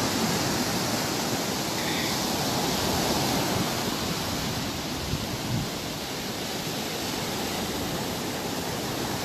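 Surf breaking and washing up onto a sandy beach close by, a steady rush of water noise.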